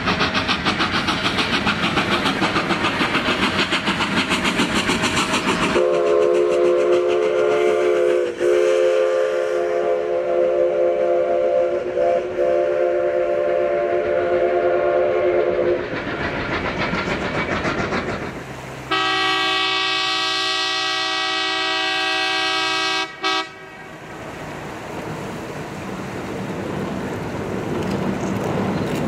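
Narrow-gauge steam locomotive working with rapid, even exhaust chuffs, then a long chime whistle blast of about ten seconds, and a few seconds later a second, shriller whistle blast of about four seconds.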